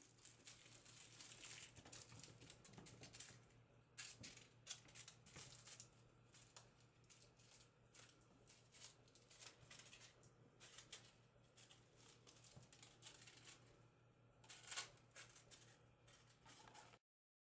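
Near silence: faint room tone with a low steady hum, and scattered light ticks and rustles of kittens moving about and batting toys on a stone-tile floor, with one sharper tick near the end.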